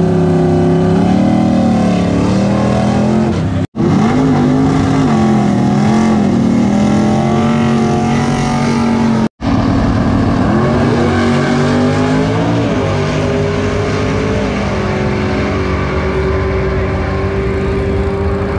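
636 cubic inch Keith Black Hemi drag car with two four-barrel carburetors, revving hard through a burnout with the rear tyres spinning. After two abrupt cuts comes a full-throttle launch: the engine pitch climbs and drops back several times as the 727 TorqueFlite automatic shifts, then rises steadily as the car runs down the strip.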